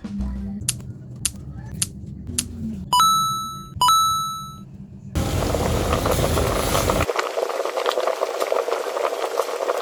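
Two short ding sound effects a little under a second apart, then about five seconds of dense crackling sizzle, as of food frying in a hot pan, which stops abruptly near the end.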